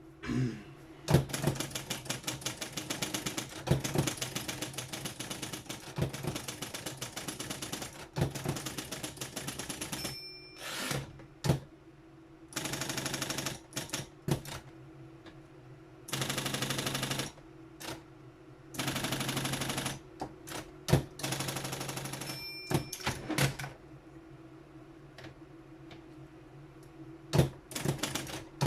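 Triumph Adler 131 D electric typewriter typing: rapid key strikes over the steady hum of its motor, with a few louder knocks and several stretches of a second or more of unbroken rapid-fire strokes.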